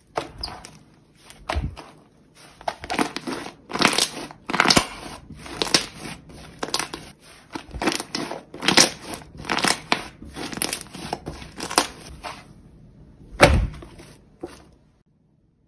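Hands kneading, stretching and squeezing a thick, clay-like slime. It gives irregular crackly squishes and air-pocket pops about one or two a second, with one louder pop near the end, then stops abruptly.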